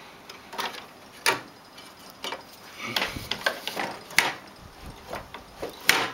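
Hand wrench clicking and tapping against metal as a nut on the snowblower's adjustment bracket is turned to take up slack: irregular sharp clicks, a few louder knocks among them.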